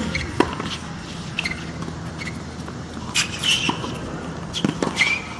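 Tennis rally on a hard court: sharp pops of racket strings striking the ball and the ball bouncing, a second or more apart, with short squeaks of tennis shoes on the court surface.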